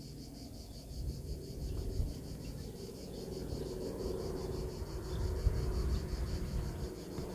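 Insects chirring in a steady high pulsing drone, about five pulses a second, over a loud, uneven low rumble.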